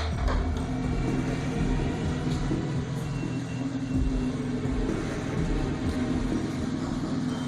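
An engine running with an uneven low rumble.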